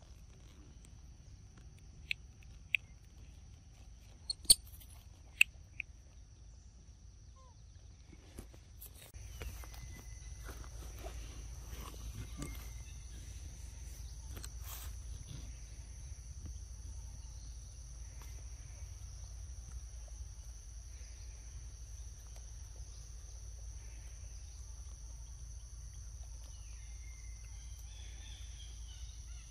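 A few sharp clicks in the first seconds, then from about nine seconds in a steady high insect drone of crickets or cicadas over a low outdoor rumble.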